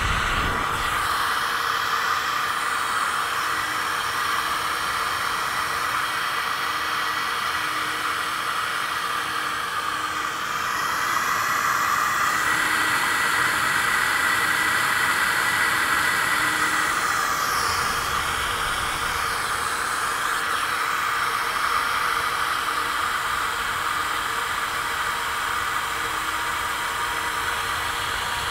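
Superflow 1020 flow bench running, its big commercial fans pulling air through a 12-valve Cummins cylinder head's exhaust port: a steady, real noisy rush of air that gets louder about twelve seconds in.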